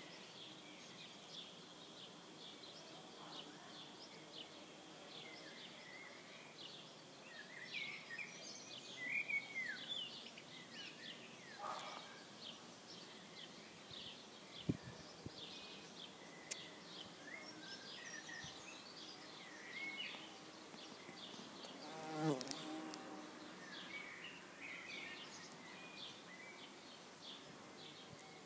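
Quiet garden ambience: small birds chirping and singing on and off, with an insect buzzing. About three-quarters through, a louder buzz swells and fades as an insect passes close.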